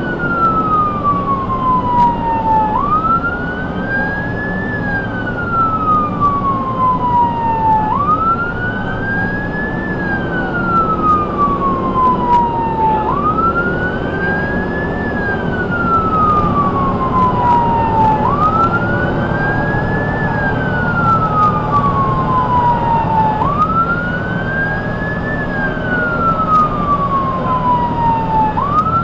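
Ambulance siren on a slow wail, each cycle sweeping up over about two seconds and gliding down over about three, repeating roughly every five seconds. It runs over the steady drone of the truck's engine and road noise, heard from inside the cab.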